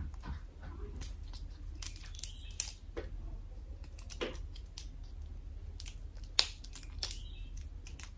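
Fried crab shell cracking and snapping as it is pulled apart by hand, a scattering of sharp cracks with the loudest about six seconds in, over a low steady hum.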